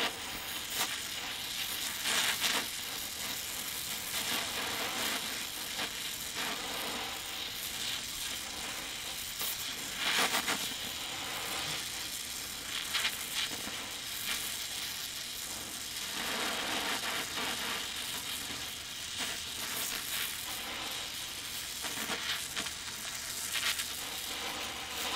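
Oxy-acetylene welding torch flame hissing steadily on steel plate, with crackling and sizzling from the molten puddle as filler rod is melted in, and a few louder bursts of crackle about 2, 10 and 16 seconds in. The oxygen is set to blow too hard a stream, which the welder noticed during this tack.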